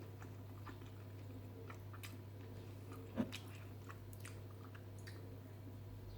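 A person chewing a mouthful of BBQ rib meat close to the microphone: faint, scattered wet mouth clicks, with one louder click about three seconds in, over a steady low hum.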